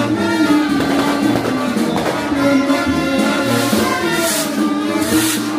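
Brass band music playing a melody of held notes.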